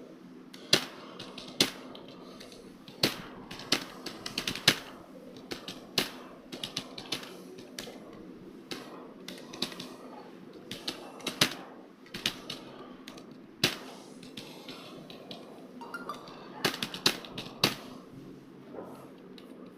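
Computer keyboard being typed on at an uneven pace, a few keystrokes a second with some louder strikes, over a faint steady hum.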